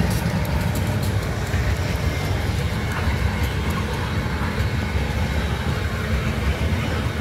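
Tank cars of a BNSF crude oil unit train rolling past close by, making a steady low rumble of wheels on rail.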